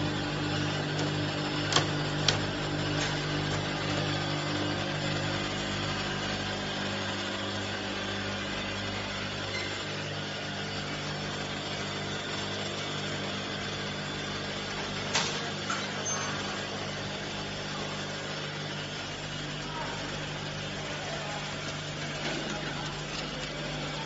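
Automatic bottle filling and capping line running: a steady hum of motors and conveyors, with a few sharp clacks of machine parts about two seconds in and again about fifteen seconds in.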